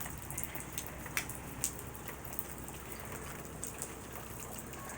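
Steady rainfall, with single drops ticking sharply now and then.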